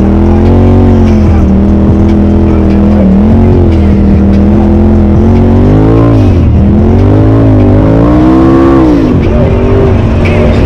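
Polaris RZR Turbo side-by-side engine running hard, its revs rising and falling again and again under throttle, with deep dips in pitch twice in the second half.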